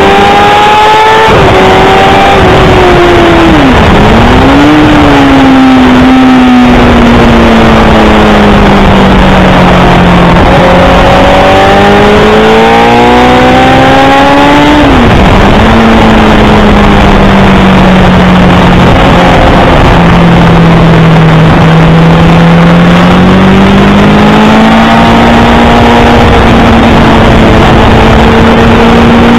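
Honda CBR1000RR inline-four engine at speed on track, under a heavy rush of wind on the onboard microphone. The engine note climbs and falls with the throttle and jumps suddenly at gear changes.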